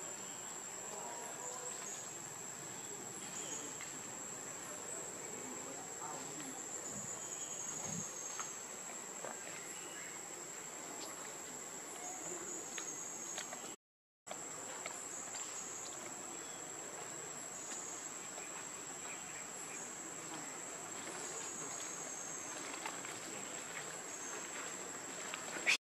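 Insects singing: a steady, high-pitched drone with faint outdoor background noise. The sound cuts out for a moment about halfway through.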